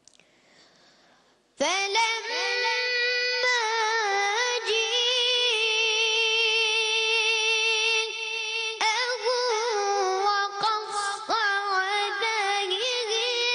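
A high solo voice, most likely the child reciter's, chanting in long held notes with melodic ornaments and a wavering tremolo. It starts suddenly after a short silence, about a second and a half in.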